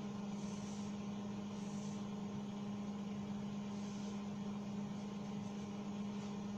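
Steady low electrical hum with evenly spaced overtones, unchanging throughout. A few faint soft swishes of a marker drawing on a whiteboard sound over it.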